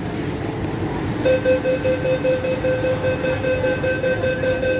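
Train door-closing warning beeping on an MTR Q-Train: a high, evenly pitched string of beeps starting about a second in and carrying on steadily over the low rumble of the train at the platform. It signals that the doors are about to close.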